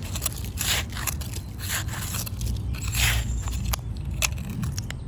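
Small hand trowel scraping and poking in dirt and leaf litter, giving irregular scrapes and crunches.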